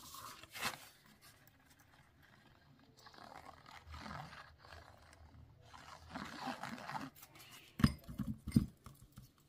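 Tip of a liquid glue bottle scraping and rubbing over embossed cardstock as glue is squeezed out, followed about eight seconds in by a few sharp knocks as the bottle is set back into a plastic cup.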